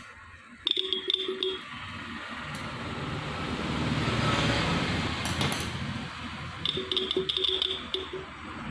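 Electric vehicle horn, powered from an old battery and partway through tuning on its adjusting screw, sounded in two short, broken blasts of about a second each, one near the start and one near the end. The tone is at a medium strength. Between the blasts a rushing noise swells and fades.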